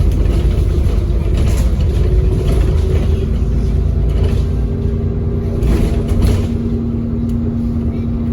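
ADL Enviro400 double-decker bus heard from on board, its engine and running gear giving a heavy low rumble, with a steady hum coming in about two to three seconds in; the rumble eases near the end.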